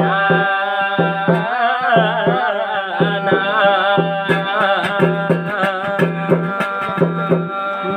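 Garhwali jagar music: steady drum strokes under long held instrumental tones, with a wavering melodic line like a singing voice over them.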